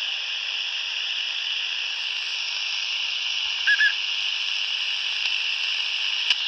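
Steady static hiss from a Retevis RA79 (Quansheng UV-K5) handheld radio's speaker, tuned to 27.555 MHz in upper sideband with the squelch held open and no station coming through. A little past halfway two short high beeps sound, and a sharp click comes near the end.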